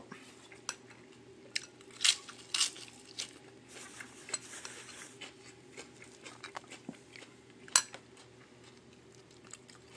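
Close-up chewing and crunching of a fresh spring roll with crisp lettuce, with scattered light clicks of a spoon against dishes, the sharpest near the end.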